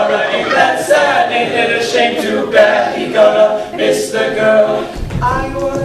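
All-male a cappella group singing a Disney medley in close harmony, several voices at once with no instruments. Deeper bass notes join near the end.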